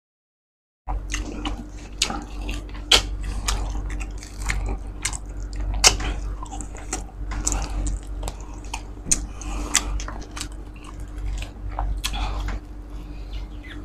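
Close-miked biting and chewing of whole roast suckling pig (lechon de leche), full of sharp crunchy clicks and wet mouth sounds, over a steady low hum. It starts after about a second of dead silence.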